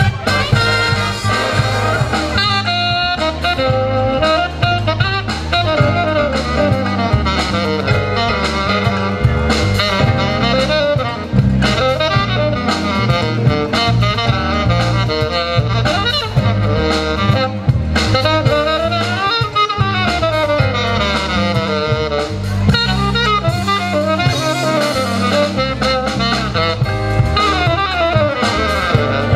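Wind band playing live: saxophones, trumpets and trombones over a drum kit, a full, continuous ensemble sound.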